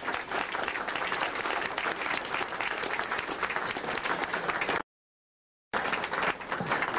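Audience applauding, a dense patter of many hands clapping. The sound cuts out completely for about a second near two-thirds through, then the clapping resumes.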